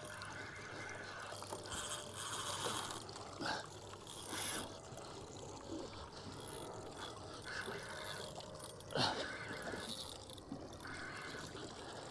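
Spinning reel being wound in against a hooked fish, its gears and ratchet whirring in spells as line comes in, with a sharp knock about nine seconds in.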